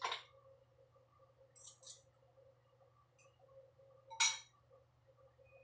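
Metal spoon clinking against a white ceramic bowl while scooping topping: a few light clinks, the sharpest and most ringing one a little after four seconds in.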